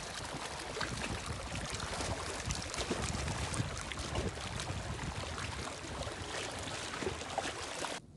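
Small lake waves lapping and splashing against pebbles and rocks at the water's edge: a steady wash with many small splashes. It cuts off abruptly near the end.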